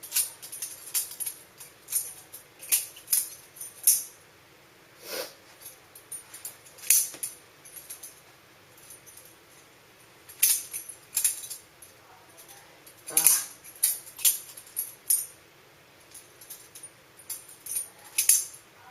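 Stainless-steel balisong (butterfly knife) being flipped through tricks: the handles and blade clack and clink against each other in quick irregular clusters of sharp metallic clicks, with short pauses between moves.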